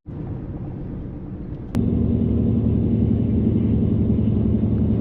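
Steady low rumble of a vehicle running, with a held low hum. A sharp click comes about two seconds in, and the rumble is louder and steady after it.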